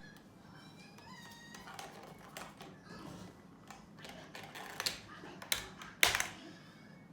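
Balls rolling and clattering through a toy marble run: light clicks and knocks, with sharper knocks about five and six seconds in.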